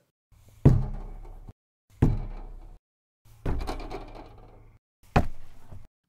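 An empty plastic-and-metal pig water-feeding barrel being rocked and struck: four separate hits about a second and a half apart, each ringing out and fading. Some are wood-like hits, others a really resonant metal sound. A low background ambience sits under the hits.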